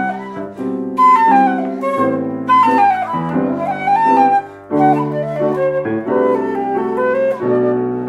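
Silver concert flute playing a lyrical melody in phrases that fall step by step from high notes, with grand piano chords underneath changing about once a second.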